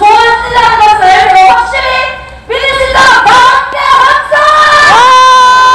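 A woman singing loudly, the melody moving through short phrases and then settling on one long held note about five seconds in.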